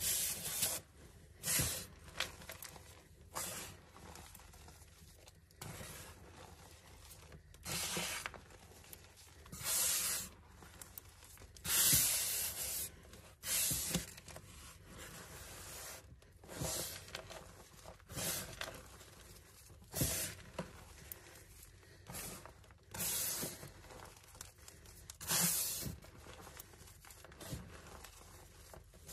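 Hands squeezing, grabbing and rubbing a mound of crushed coloured gym chalk, giving crunchy, powdery crumbling in irregular bursts every second or two.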